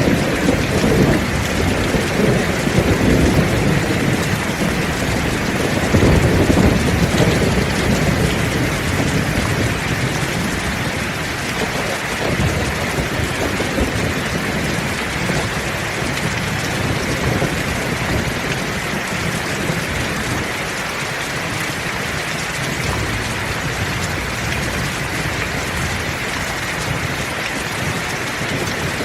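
Heavy, steady rain with thunder rumbling deeply through the first third, then easing off to leave the rain alone.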